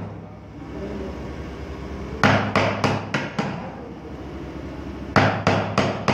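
Chisel being struck with a hammer, cutting into a block of wood: two quick runs of blows, about four a second, the first run about two seconds in and the second near the end.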